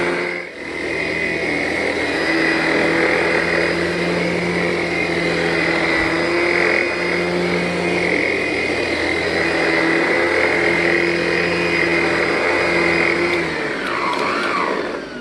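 Vacuum cleaner running steadily on carpet, its motor giving a constant hum and whine. Near the end it is switched off and the motor winds down with a falling whine.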